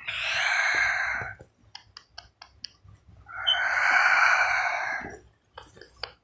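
Two long breathy exhales close to the phone's microphone, like sighs, the first about a second long and the second about two seconds, with a few light tapping clicks between them.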